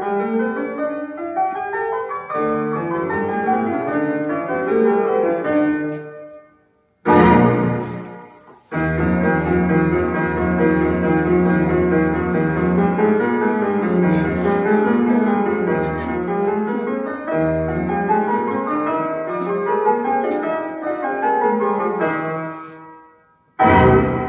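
Orchestral recording with pianos playing scales that rise and fall, at times in opposite directions, broken by a short loud orchestral chord about seven seconds in and again near the end, each followed by a brief pause. Played back from a vinyl record through large horn loudspeakers in a room.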